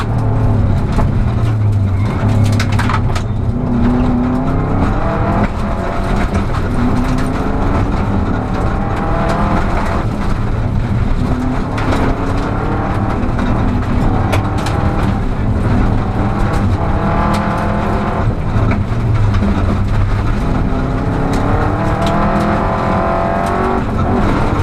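Rally car's engine heard from inside the cabin, its revs climbing and dropping again and again through gear changes. Gravel knocks against the car every so often.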